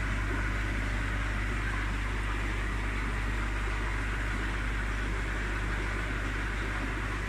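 Aquarium system's pumps and water circulation running: a steady low hum with an even hiss over it.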